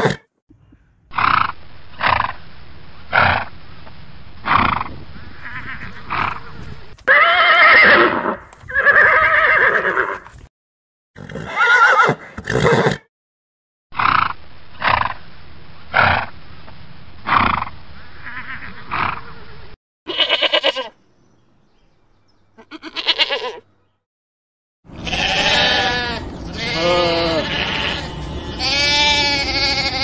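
Horses: short sharp sounds about once a second, then two loud whinnies, the sequence heard twice. Near the end, a lamb bleats several times in quavering calls.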